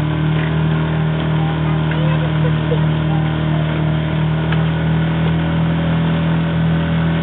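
Small motorboat's engine running steadily under way. It picks up slightly at the very start, then holds one even pitch.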